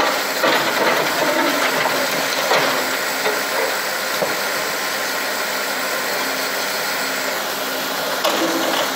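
Backhoe loader's diesel engine running steadily as the rear arm works, with a few brief knocks near the start and about two and a half seconds in.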